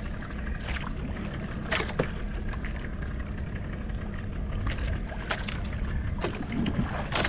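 Steady rumble of wind and water around a small wooden outrigger fishing boat at sea, with a few light knocks now and then.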